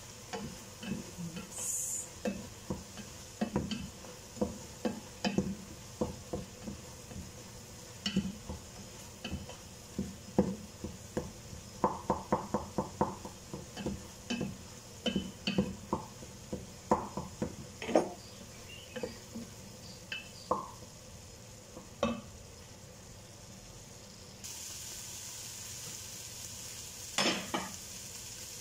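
Wooden spatula stirring and scraping ground meat in a stainless steel stockpot, with irregular knocks against the pot, over a steady sizzle of the meat frying. A quicker run of strokes comes about twelve seconds in, and the sizzle grows louder near the end.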